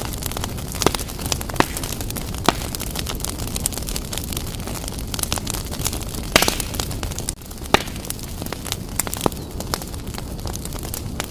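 Wood fire in a fireplace burning vigorously: a steady low rumble of flames with scattered sharp crackles and pops from the burning logs, and a louder cluster of pops about six seconds in.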